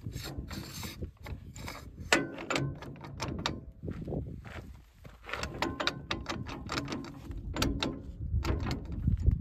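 Irregular metal clicks and clanks of a tractor PTO drive shaft being handled: its telescoping tube sliding and its universal-joint yoke being worked onto the shredder's splined input shaft.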